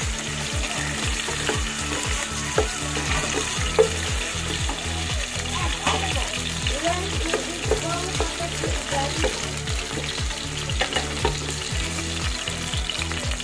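Sweet potato sticks sizzling and bubbling steadily in hot frying oil, stirred now and then with a wooden spatula. A steady low pulse, about three a second, runs underneath.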